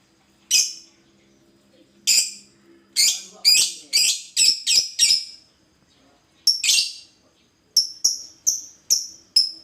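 Lovebird calling with short, high-pitched chirps, about fifteen in irregular runs, several in quick succession.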